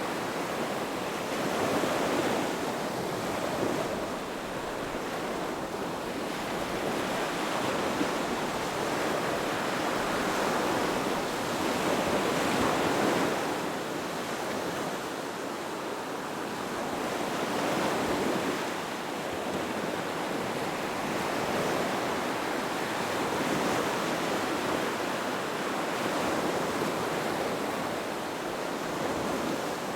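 Ocean surf: waves breaking and washing ashore as a continuous hiss that swells and eases every five seconds or so.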